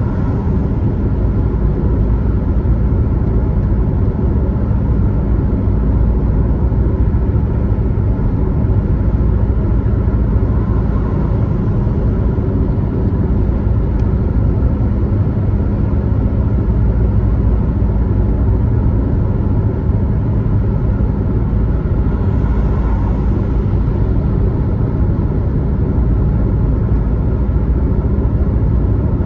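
Car driving at highway speed: a steady, low rumble of road and engine noise that does not let up.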